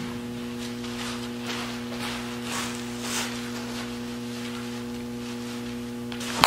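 Steady electrical mains hum, with a single sharp crack at the very end as an aluminum bat hits the ball off the tee.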